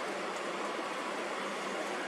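A steady, even rushing noise with no rhythm or breaks, the kind of continuous background noise used on sleep-sound tracks.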